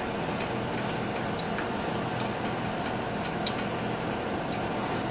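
Spoon stirring and pressing blended broth through a fine-mesh metal strainer: wet scraping with scattered light ticks of the spoon on the mesh, over a steady low hum.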